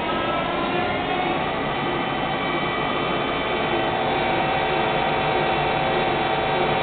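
Mori Seiki SL-3 CNC lathe running: a steady machine whine of several tones over a hum, with one higher tone growing stronger about halfway through.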